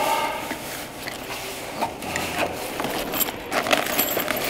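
Gear being rummaged through in a padded nylon carry bag: fabric rustling with scattered light clicks and clinks of cables, metal clasps and small parts being handled, and a brief buzz right at the start.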